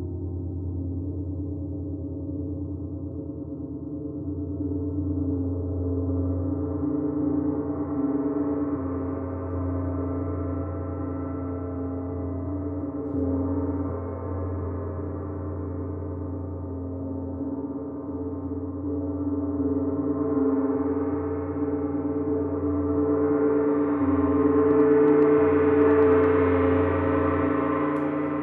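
Gong being played as a continuous, dense drone of many overlapping tones. It swells louder several times and is brightest and loudest near the end.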